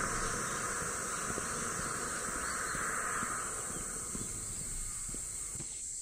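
Insects buzzing in a summer chorus: a loud, even buzz that fades away over the last couple of seconds, over a steady high-pitched insect hum.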